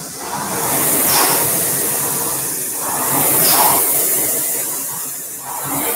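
Concept2 indoor rower's air-resistance fan flywheel whooshing. The whoosh surges with each drive and eases on the recovery, about every two and a half seconds, at a stroke rate of 24 per minute.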